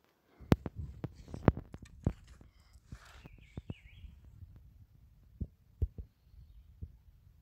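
Knocks, scuffs and rubbing from a phone and rifle being handled while someone moves over boulders. The loudest knocks come about half a second and a second and a half in, with scattered softer taps later and a short chirp around three seconds.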